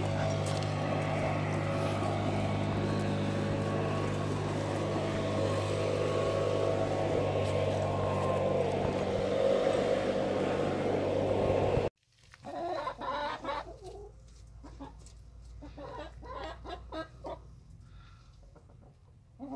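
A steady low hum for about twelve seconds cuts off suddenly. Chickens then cluck in short, separate calls.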